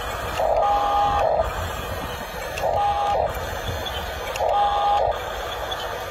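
A toy-scale RC bulldozer's electric track motors and gearboxes whine in three short bursts of about a second each, as the tracks are driven and the bulldozer turns on sand.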